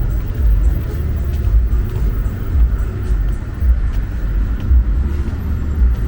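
City street traffic: a continuous low rumble of passing cars and other road vehicles.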